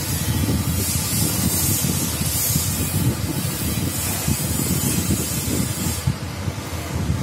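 Steady hiss of background noise, with a fluttering low rumble under it. In the first few seconds come a few brief high scratchy strokes, fitting a ballpoint pen drawn along a steel ruler on paper.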